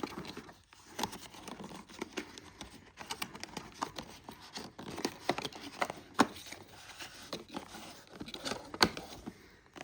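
Headset packaging being opened and handled by hand: irregular rustling and crinkling with many sharp clicks and snaps.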